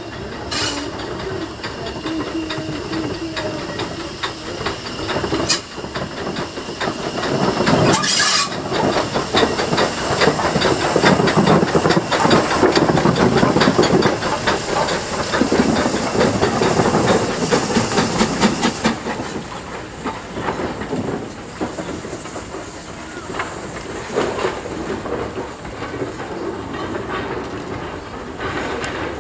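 WD Austerity 0-6-0ST saddle-tank steam locomotive working a train past, its exhaust and hissing steam loudest from about eight to nineteen seconds in as it passes close. There is a short, loud burst of hiss about eight seconds in.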